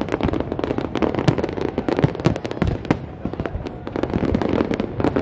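Large aerial fireworks display bursting in rapid succession: many sharp bangs and pops, several a second, over a continuous din.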